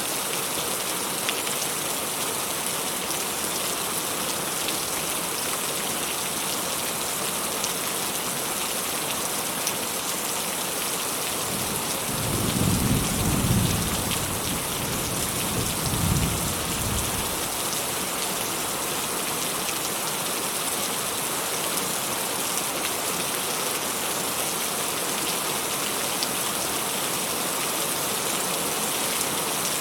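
Steady rain falling. About twelve seconds in, a low roll of distant thunder rumbles for around five seconds, rising twice before fading back under the rain.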